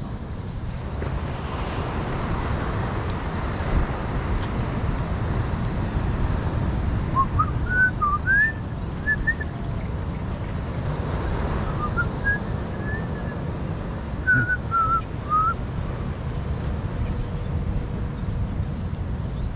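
A person whistling two short phrases of a tune, the first about seven seconds in and the second about twelve seconds in. Underneath runs a steady rush of wind on the microphone and surf.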